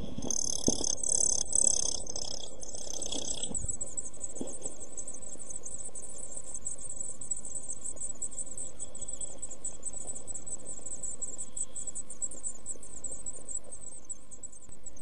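Week-old blue tit nestlings begging in the nest box. A loud burst of high-pitched calls with knocks from movement in the box comes while the parent is at the nest, then a steady, rapid, high chittering that fades just before the end.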